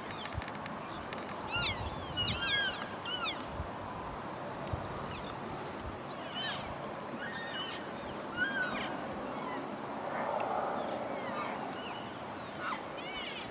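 Elk cows and calves calling back and forth with short, high-pitched mews, each call arching up and then down in pitch. The calls come in a quick cluster about two seconds in, then scattered through the rest.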